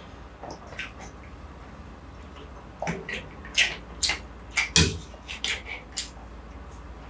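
Close-miked ASMR eating sounds: a person slurping and chewing a mouthful of noodle soup, with sharp wet mouth clicks and smacks. Quiet at first, then a quick run of about a dozen clicks and smacks through the middle, one with a soft low thud.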